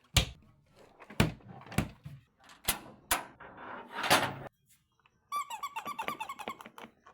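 Household objects knocked and banged one at a time, about six sharp knocks over four seconds. Then comes a rapid, squeaky rattling that lasts nearly two seconds.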